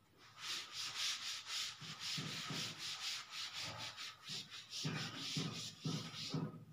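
Chalkboard duster rubbing across a chalkboard, erasing it in rapid back-and-forth strokes. The strokes start about half a second in and stop just before the end.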